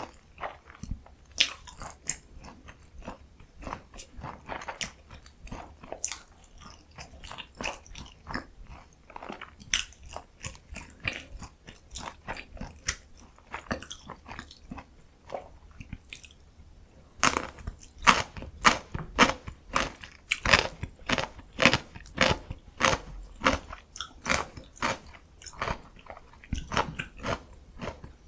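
Close-miked eating: biting and chewing of mandu dumplings and danmuji pickled radish, moist chews and sharp crunches. The crunches come thicker and louder from a little past halfway.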